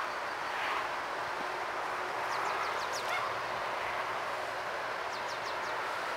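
Tr5 steam locomotive approaching in the distance, heard as a steady, even rush with no distinct exhaust beats. A small bird gives two short runs of quick, high, falling notes, about two and a half seconds in and again at about five seconds.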